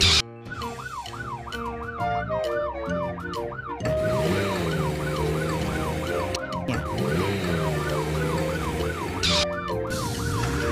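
Police car siren yelping, its pitch rising and falling quickly about three times a second, over background music.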